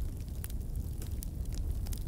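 Wood fire in a fireplace crackling: a steady low rumble of flames with scattered sharp pops and snaps.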